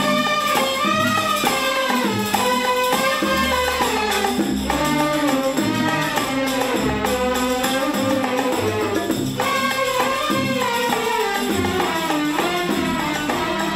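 Instrumental interlude from a 1970s-era Egyptian orchestral song: an ensemble plays a flowing melody line over a hand-percussion rhythm, with no singing.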